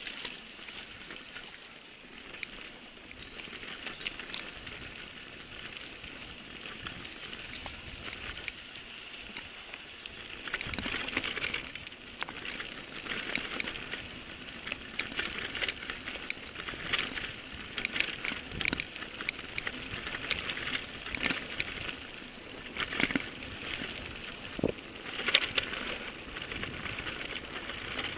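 Mountain bike riding over a dirt trail: the tyres crunch and crackle over the ground, with quick clicks and rattles from the bike over bumps, getting louder and busier about ten seconds in.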